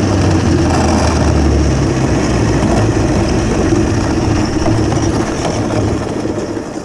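Home-built electric snowmobile under way on packed snow: a loud, steady rush of track and drivetrain noise that eases off near the end.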